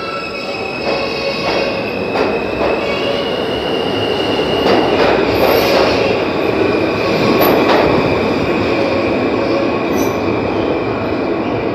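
New York City subway train pulling out of the station, wheels squealing in a steady high tone over the rumble of the cars, with scattered clicks as the wheels pass over the rail joints.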